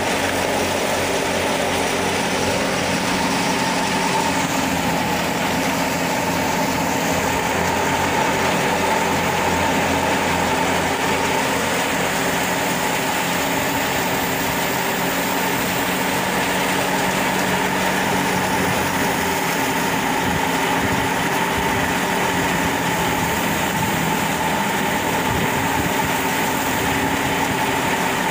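Tractor-driven wheat thresher running steadily under load as wheat straw is fed in: a constant engine drone with the threshing machine's whirring and rushing chaff over it.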